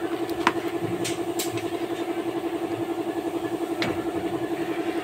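An engine idling steadily, a hum with a fast, even pulse of about eight beats a second, with a few short light metallic clicks at the rear brake.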